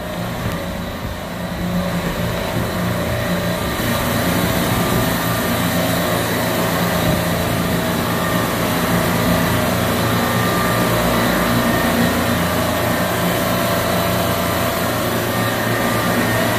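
A rack of supermarket refrigeration compressors running together in the motor room: a steady machine drone with a low hum, growing louder over the first couple of seconds and then holding even.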